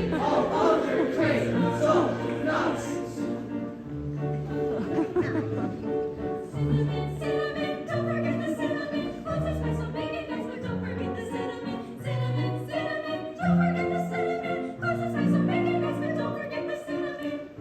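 Choir singing over instrumental accompaniment, with a bass line of separate low notes under the held voices.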